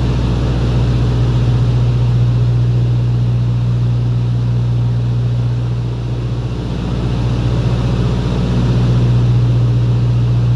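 Beech 18's twin radial piston engines and propellers droning steadily in cruise, heard from inside the cockpit as a deep even hum. It dips slightly about six seconds in and grows louder again near the end.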